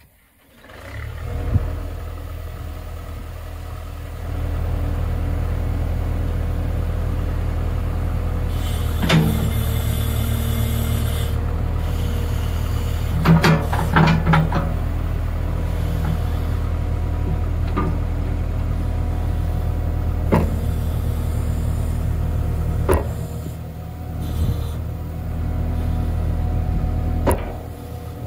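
Backhoe engine starting about a second in and running steadily, throttled up around four seconds, while the backhoe's bucket pushes on the dozer. Sharp metal clanks and knocks come through several times, loudest in a cluster about 13 to 14 seconds in.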